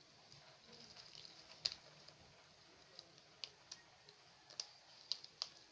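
Faint, scattered clicks and light taps from small objects being handled, one sharper click just under two seconds in and a handful more in the second half.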